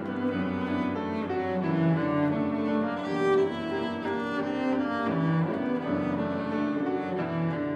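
A cello and an upright piano play a piece together, the cello bowed over the piano's accompaniment.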